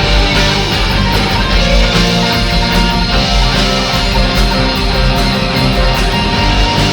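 Southern rock band playing live, loud electric guitars over bass and drums.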